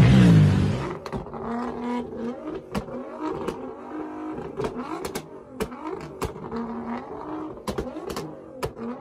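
A car engine runs loud for about the first second, then cuts off abruptly. After that, a parked sports car idles quietly, with about a dozen irregular sharp pops from its exhaust.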